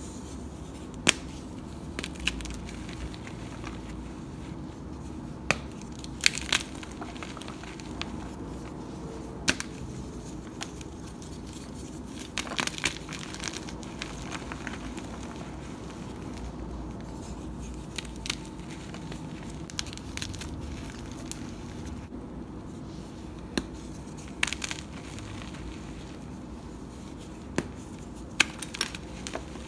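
Blocks of gym chalk (magnesium carbonate) coated in powdered charcoal being crushed and crumbled by hand: a dozen or so sharp cracks and crunches at irregular intervals as the blocks break apart.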